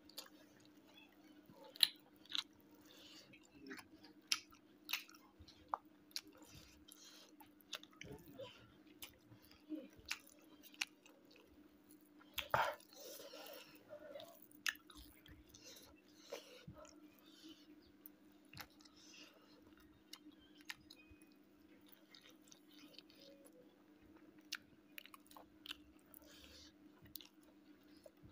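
A person chewing smoked pork and rice with axone, close up: many small wet clicks and smacks from the mouth, with a louder crunch about twelve seconds in, over a faint steady hum.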